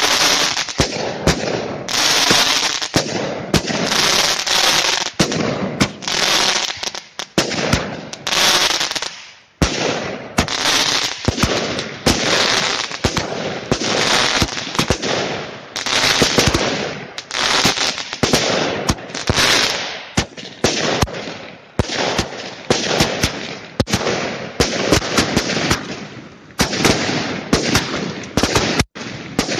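Category 2 consumer firework batteries firing a rapid series of shots, each launch followed by a hissing, crackling burst. The shots come quicker and sharper in the last third.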